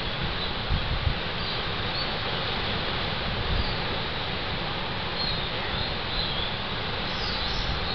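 Steady background hiss picked up by a burrow sensor camera, with a couple of low bumps about a second in and a few faint, short, high chirps.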